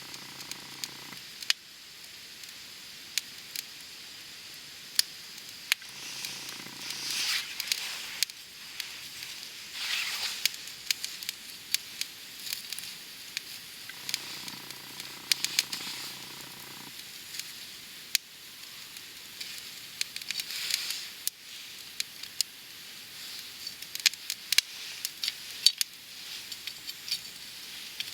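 Open wood campfire of gathered firewood burning, crackling with frequent sharp pops over a steady hiss that swells louder several times.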